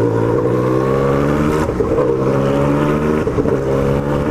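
Yamaha MT-09's inline three-cylinder engine accelerating through the gears, its note climbing steadily and dipping briefly at upshifts about one and a half and three seconds in.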